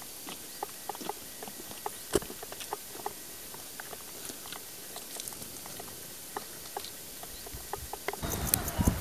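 Faint, irregular small clicks and ticks over a steady hiss, with one sharper click about two seconds in; near the end a louder low rumble comes in.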